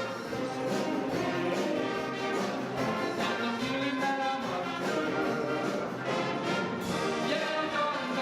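Orchestra playing, with brass and strings sounding together in a continuous passage of sustained notes.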